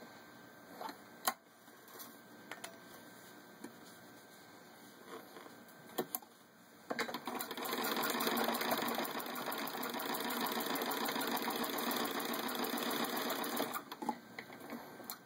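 Antique Singer 127 sewing machine, turned by hand crank, stitching through six layers of denim. Scattered clicks come first, then from about halfway in the machine runs steadily for about seven seconds before stopping shortly before the end.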